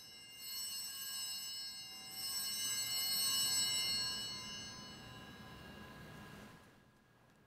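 Altar bells, a cluster of small sanctus bells, rung at the elevation of the consecrated host. A bright, many-toned ringing that is shaken again about half a second in and about two seconds in, then dies away near the end.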